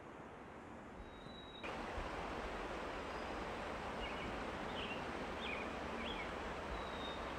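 Steady rush of a forest creek running below the trail, jumping louder about a second and a half in, with a few short high bird chirps near the middle.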